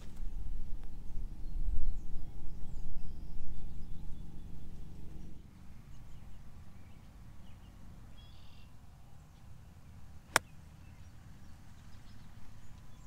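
A low rumble of wind on the microphone for the first five seconds, then a single crisp click about ten seconds in: a golf club striking the ball on an 80-yard approach shot.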